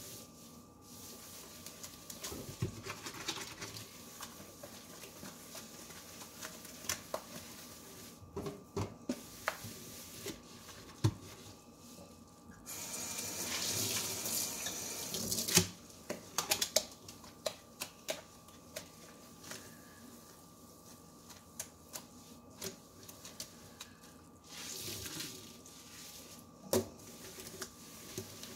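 A sponge scrubbing a stainless steel sink through scouring powder and dish soap suds, with scattered light knocks against the metal. About halfway through, the faucet runs for about three seconds as hands are rinsed under it.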